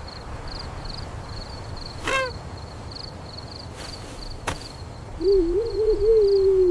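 Evening countryside ambience: a high chirping that pulses about three times a second, a short falling call about two seconds in, a sharp click, and a long wavering hoot-like call near the end.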